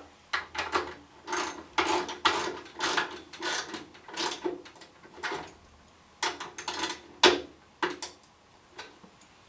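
Socket ratchet wrench clicking in short strokes, about one to two a second with a pause of about a second past the middle, tightening the bolt that clamps a wooden featherboard holder into a table saw's V-rail.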